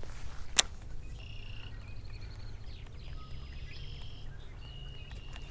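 Birds calling with short, thin, high whistles over a steady low outdoor hum, with one sharp click about half a second in.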